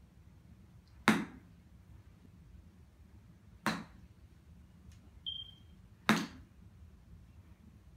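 Three sharp cracks of golf irons striking balls off driving-range hitting mats, about two and a half seconds apart; the first is the loudest. A faint short high ping comes between the second and third.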